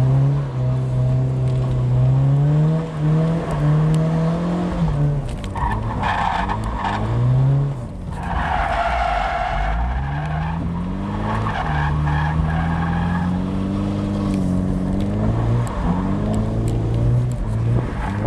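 A car's engine revving up and down repeatedly as it is driven hard, with tyres squealing in several bursts through the middle as the car slides on concrete, heard from inside the cabin.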